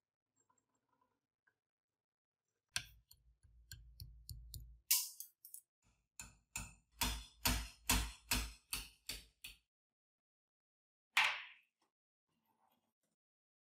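Hammer striking a pin punch to drive the gear shaft out of an antique hand drill's cast-iron frame held in a vise. A few uneven taps come first, then a steady run of about a dozen metal-on-metal blows, roughly three a second, and one short clatter near the end.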